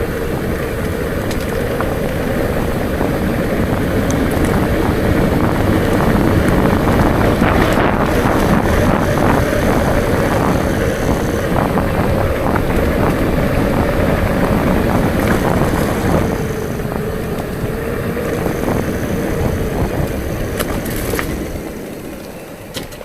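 Wind rushing over the microphone while riding a bicycle, with the tyres rolling on a rough road and a steady hum. Scattered rattles and clicks come through, and the noise dies down over the last couple of seconds as the bike slows.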